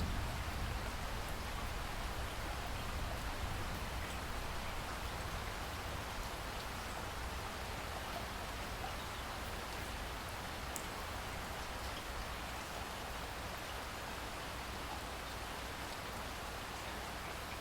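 Steady rain falling, an even hiss with a few separate drops ticking and a low rumble underneath.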